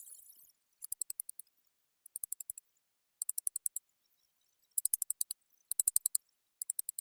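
Spider sound: short trains of rapid, thin, high clicks, about six bursts of half a second each, separated by short silences.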